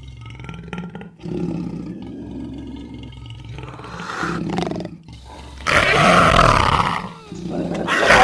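Big-cat calls: a few short, low growls over the first five seconds, then two much louder roars starting about six and eight seconds in.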